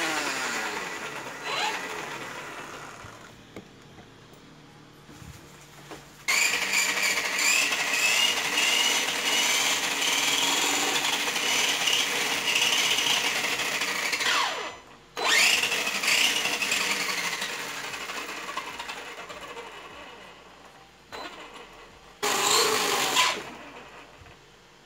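Brushless electric motor and drivetrain of a 1/8-scale RC buggy revving with its wheels spinning free off the ground: short throttle blips whose whine falls in pitch as they wind down, a steady high-speed run of about eight seconds that cuts off suddenly, then a burst that slowly coasts down, and one last short blip near the end.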